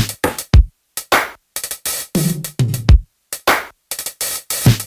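Electronic intro music built on a drum-machine beat: short, punchy hits with deep kicks among them, chopped up by brief gaps of silence between the hits.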